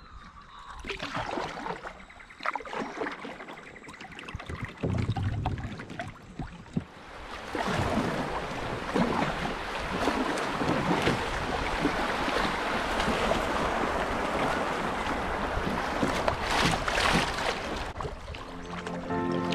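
Kayak paddle strokes splashing and water slapping the hull, then from about eight seconds in a steady rush of river water as the kayak runs through a choppy riffle. Background music starts just before the end.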